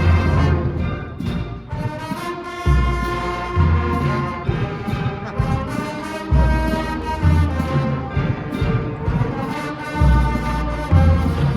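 Marching band playing a parade tune: brass instruments hold sustained chords over low drum hits that come about once a second.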